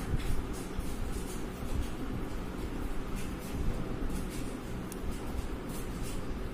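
Steady low room rumble with faint, scattered light ticks and rustles.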